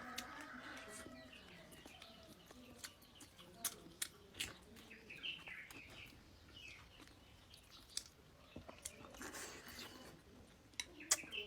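Eating sounds: chewing and biting with many short, sharp clicks and crunches, while birds chirp in the background.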